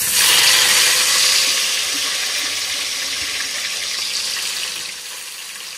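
A marinated fish steak sizzling as it is laid into hot oil in an aluminium kadai. The hiss starts suddenly and slowly dies down over about five seconds.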